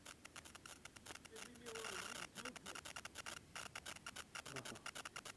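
Faint crackling and rustling made of a quick, irregular run of small clicks, with a quiet voice heard briefly about two seconds in.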